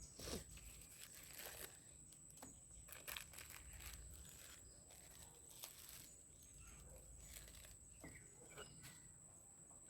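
Near silence with scattered faint rustles and clicks of a watch and its packaging being handled.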